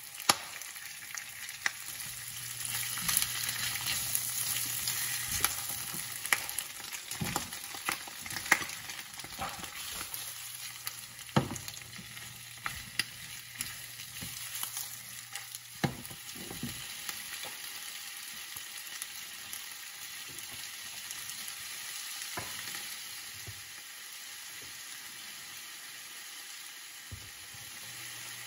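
Pork and potato slices sizzling in oil in a nonstick frying pan, with the clicks and knocks of a plastic spatula stirring against the pan. The sizzle is louder a few seconds in and the spatula knocks thin out in the last third.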